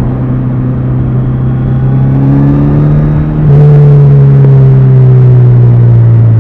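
Kawasaki Z900RS's four-cylinder engine and exhaust while riding. The note climbs slowly, then about halfway through turns suddenly louder and higher-pitched as the throttle opens, and eases down gradually after that.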